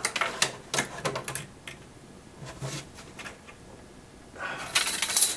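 Tape measure being handled inside a wooden drawer opening: a scatter of light clicks and knocks of the tape against the wood, with a short burst of hiss-like noise near the end.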